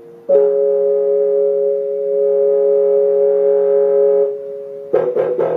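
Electric piano playing through a speaker: a steady two-note chord held for about four seconds, then several quick short notes near the end.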